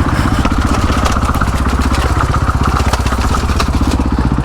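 Supermoto motorcycle engine running at a steady speed while riding, heard from on the bike.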